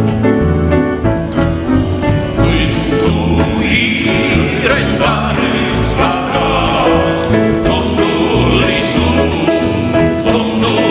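A male vocal group sings a Romanian gospel hymn together, accompanied by electric keyboard, piano, electric guitar and bass guitar. For about the first two seconds the instruments play alone, then the voices come in.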